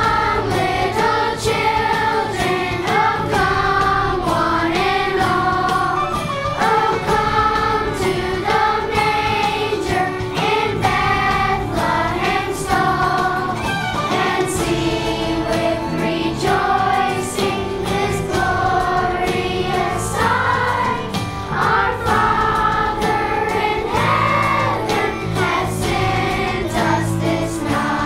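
A children's choir singing a Christmas song together over an instrumental backing.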